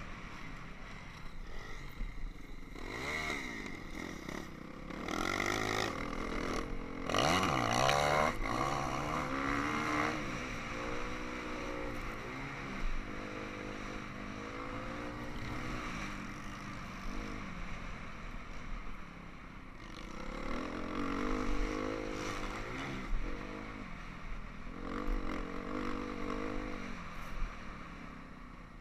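Dirt bike engine and crash noise with scraping and clattering, then the injured rider's repeated groans and moans, each about a second long, in two runs.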